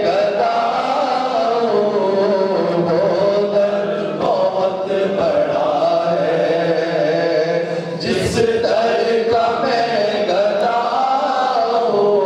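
A man chanting a naat, an Islamic devotional poem, into a microphone without instruments, in long wavering melodic lines. A short burst of noise comes about eight seconds in.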